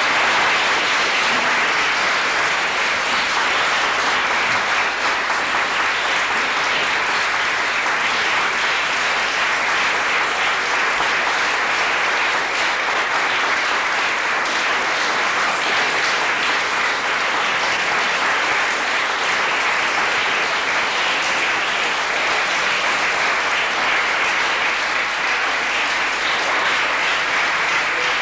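Audience applauding, a steady, sustained clapping that holds at the same level throughout.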